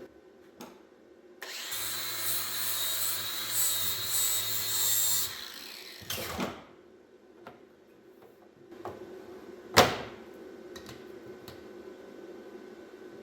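A hand power tool runs for about four seconds, then stops. A knock follows, and about ten seconds in a single sharp knock, the loudest sound, with a few light clicks around it.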